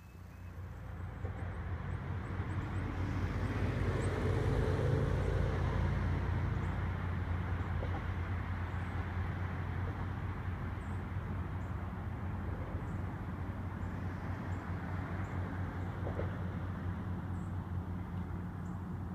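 A steady engine drone, swelling over the first few seconds and then holding.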